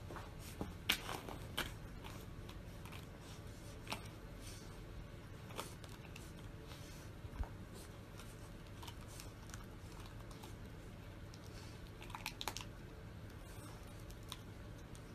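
Chow chow puppy chewing and gnawing on a small crinkly wrapper: scattered faint crunching and crinkling clicks, a few sharper ones about a second in and again near the end, over a low steady room hum.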